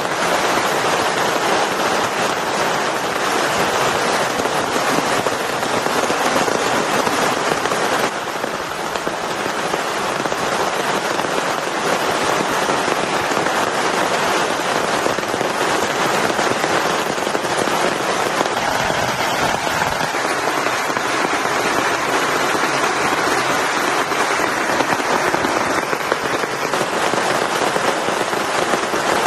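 Heavy rain falling steadily, a dense pattering of drops hitting a surface.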